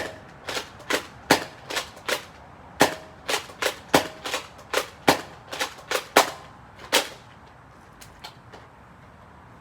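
Nerf Rival Phantom Corps pistol firing foam balls in quick succession, about seventeen sharp shots at two to three a second, stopping about seven seconds in. A few faint clicks follow near the end.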